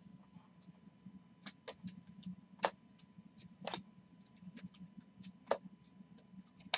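A stack of Panini Prizm trading cards being flipped through by hand, the cards sliding and clicking against each other in faint, irregular clicks.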